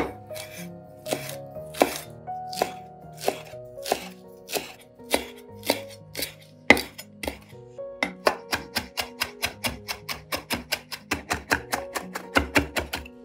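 Chef's knife chopping fresh parsley on a wooden cutting board: sharp knocks of the blade on the board, slow at first, then quickening to a fast, even run of chops from about eight seconds in. Background music plays underneath.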